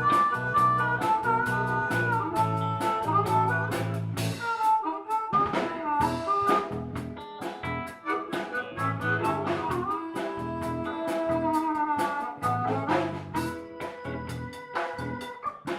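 Blues band playing an instrumental break with no vocals: drum kit and a steady bass line under a lead instrument playing held, bending notes.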